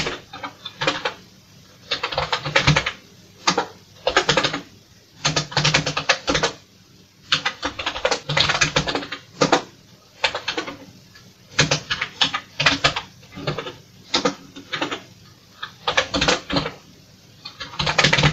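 Typing on a Commodore VIC-20 keyboard: irregular runs of quick keystrokes with short pauses between them.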